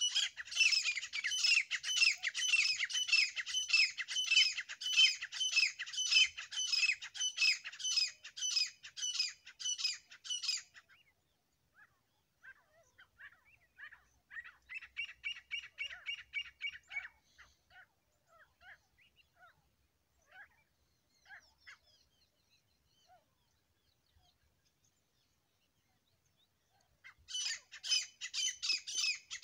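A pair of grey francolins (grey partridge, teetar) calling: a fast run of loud, repeated shrill notes for about ten seconds, then a quieter bout and scattered faint notes. A loud bout starts again near the end.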